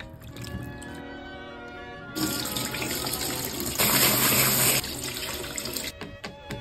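Background music, then from about two seconds in a kitchen tap running water onto strawberries in a bowl in a steel sink, loudest in the middle and stopping near the end.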